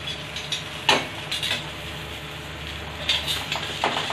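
A perforated steel skimmer scraping and clinking against an iron tawa as it is worked under a griddled tikka to lift it for flipping. One sharp metal clack about a second in, then more scrapes and clicks near the end.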